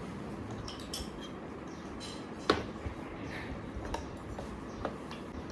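A few light clinks of utensils or tableware against dishes, the sharpest one about two and a half seconds in with a short ring, and smaller taps after it.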